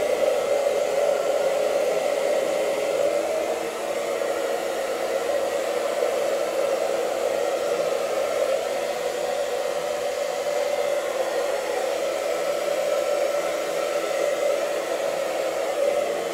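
Handheld hair dryer running steadily, blowing on a damp beard.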